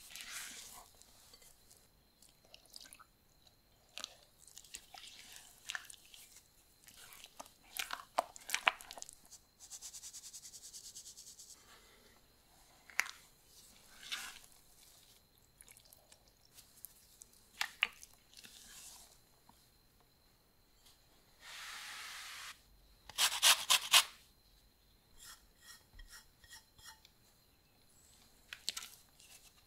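Silicone spatula folding flour into thick cake batter in a glass bowl: irregular sticky squelching and scraping strokes. About three-quarters of the way through comes a short cluster of sharper, louder knocks.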